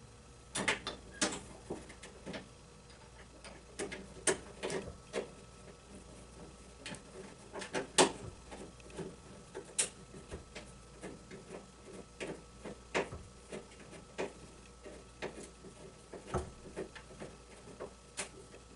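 Irregular metal clicks and ticks as 1/4-20 machine screws are started and turned into freshly tapped holes to mount a commercial door closer's arm foot on the door frame, with the strongest click about eight seconds in.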